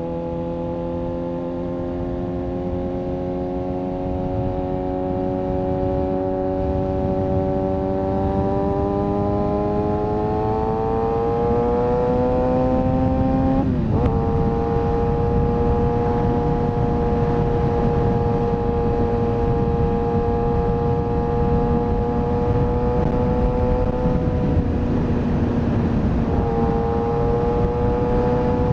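Kawasaki ZX-6R inline-four engine pulling under throttle, its note climbing gradually, then dropping sharply about fourteen seconds in as it shifts up. It then runs at a nearly steady pitch, with a brief dip near the end, over a steady rushing noise.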